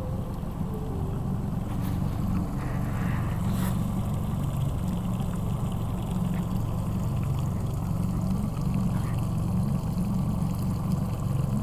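Engine running with a steady low drone.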